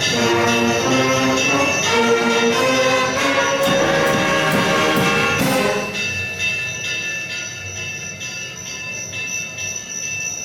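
Wind band playing a sustained passage with percussion. About six seconds in the band stops, and a quieter electroacoustic soundscape track carries on with a high, pulsing, chirping tone.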